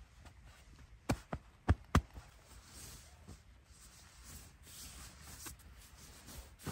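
Four sharp knocks or taps in quick succession about a second in, the last two the loudest, over a faint background.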